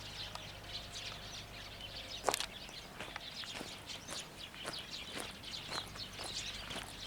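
Outdoor ambience of birds chirping in short, frequent calls, with one sharp click a little over two seconds in. A faint tone, the last echo of the loudspeaker chime, dies away in the first two seconds.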